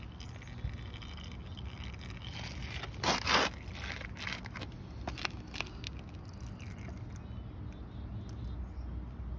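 A brief scrape about three seconds in, followed by a few light clicks, over a steady low rumble.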